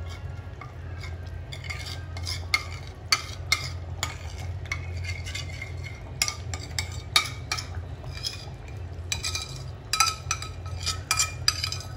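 Metal spoon scraping and clinking against a ceramic plate in many quick, irregular strokes as mustard-and-vinegar paste is scraped off it. A steady low hum runs underneath.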